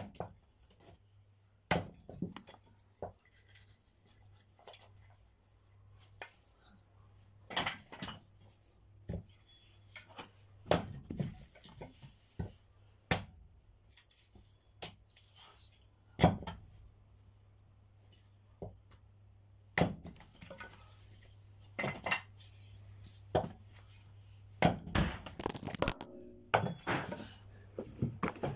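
Firewood being handled: irregular wooden knocks and clunks as logs strike one another, over a faint steady hum.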